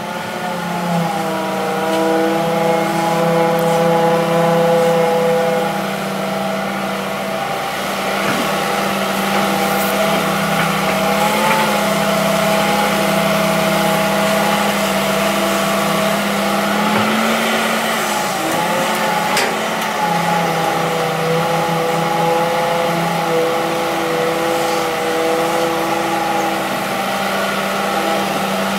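Hitachi EX200-3 hydraulic excavator's diesel engine running steadily under working load, its pitch dipping slightly a couple of times as the hydraulics take up load.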